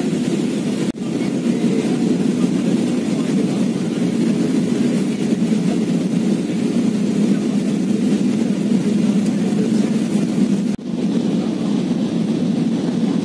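Steady cabin roar of an Airbus A320 in flight, engine and airflow noise heard from a window seat inside the cabin. It cuts out for an instant twice, about a second in and near the end.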